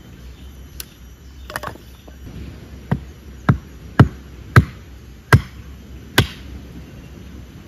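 Hatchet splitting small firewood on a tree-stump chopping block: a series of about eight sharp wooden knocks, roughly two a second through the middle.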